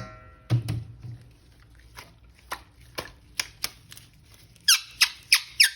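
Handling noise of plastic: scattered clicks and taps, then four quick, louder rubbing or squeaking strokes near the end.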